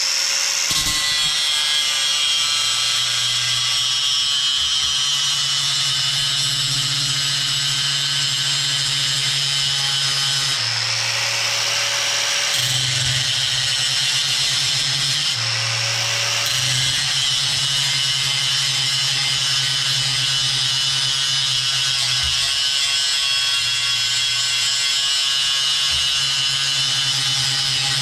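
Angle grinder with a ceramic abrasive disc grinding the cutting edge of a steel lawn mower blade, running steadily with a high whine over a grinding hiss. Its pitch shifts a few times partway through.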